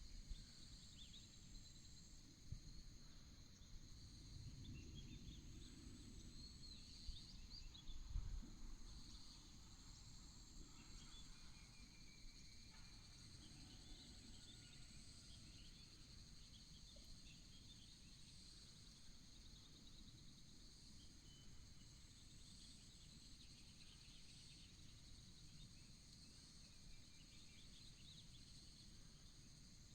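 Faint countryside ambience: insects trilling steadily in high, unbroken tones, with scattered short bird chirps over it. A low rumble and a brief thump come about eight seconds in.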